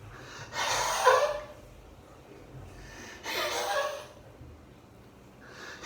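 Two short bursts of a person's voice, the first about a second in and the second about three seconds in.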